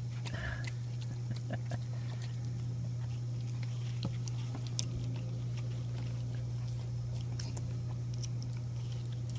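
Dog chewing and biting a piece of watermelon: irregular small crunching clicks, over a steady low hum.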